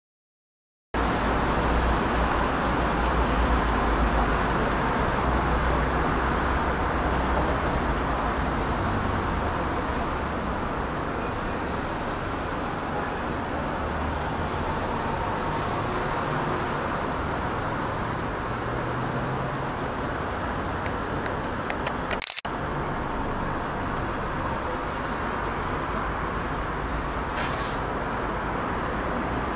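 Steady outdoor background rumble and hiss, heaviest in the low end for the first few seconds, with a single sharp click about three-quarters of the way through.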